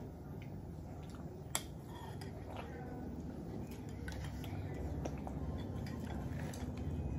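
Spoons clicking and scraping against small bowls as children eat, a scatter of light ticks with one sharper click about one and a half seconds in, over a faint low hum.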